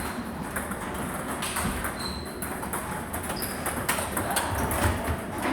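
Table tennis balls being hit in play: irregular sharp clicks of ball on bat and table, with a few short high squeaks.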